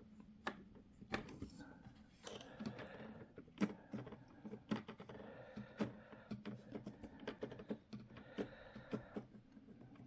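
Irregular small clicks and taps of hands and a screwdriver working the joystick gimbal inside a radio-control transmitter, adjusting the screw that sets the stick's centring-spring tension.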